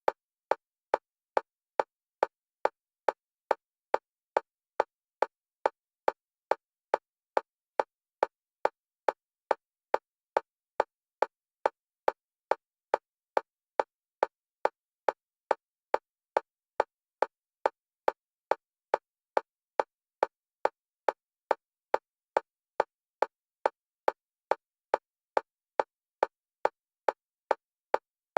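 Metronome-style click of one pitch repeating evenly, a little over two clicks a second, with silence between clicks, alternating between the left and right stereo channels for EMDR bilateral stimulation.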